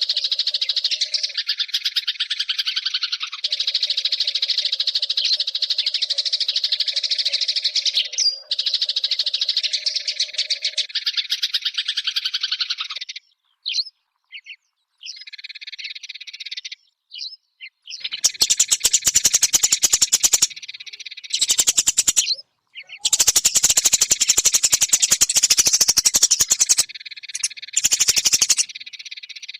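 Eurasian tree sparrows chirping and chattering in fast, continuous trains of notes. There is a patchy lull from about 13 to 18 seconds in, and then the chatter resumes louder with short breaks.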